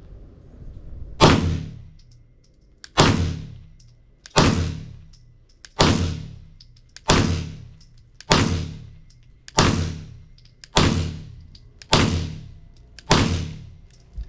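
Ten slow, aimed 9mm shots from a Sig Sauer M17 pistol, about one every second and a half, each a sharp crack that dies away quickly.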